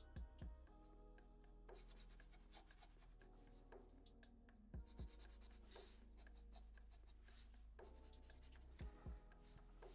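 Black felt-tip marker scratching on paper in faint short strokes as stripes are drawn, with a few soft low knocks.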